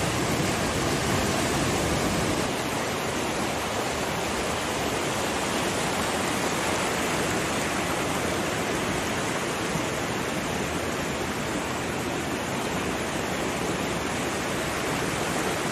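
Floodwater rushing in a steady, continuous roar.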